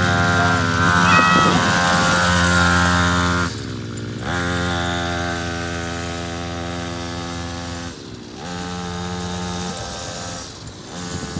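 Small engine of a kids' mini quad running steadily under throttle. Its pitch drops and comes back twice as the throttle is eased and reopened, and it grows fainter as the quad drives off.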